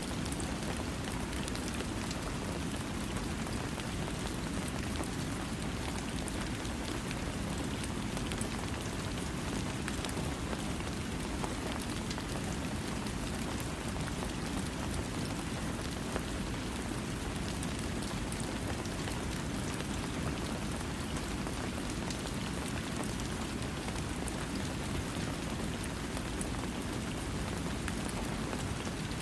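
Steady rain falling, an even hiss of drops with a deep low rumble beneath and fine scattered drop ticks, no thunder.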